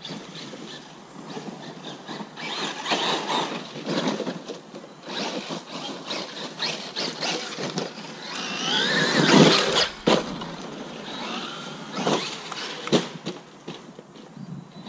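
Traxxas Maxx electric RC monster truck driving over bare dirt: repeated bursts of motor and tyre noise, with a whine that rises in pitch as it speeds up about nine seconds in, the loudest part, followed by a few sharp knocks from bumps or landings.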